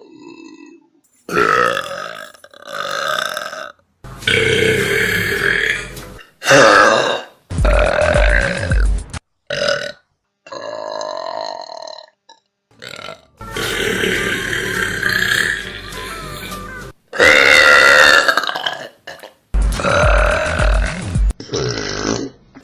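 A rapid string of loud human burps, about a dozen, each a separate clip cut off abruptly before the next begins; some are long and drawn out and rise and fall in pitch. A low pulsing beat of music runs under a couple of them.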